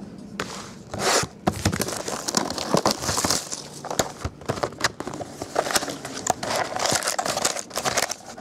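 Crinkling and tearing of plastic wrap and foil packs as a sealed trading card box is opened and its packs taken out, with scattered sharp taps and clicks of cardboard.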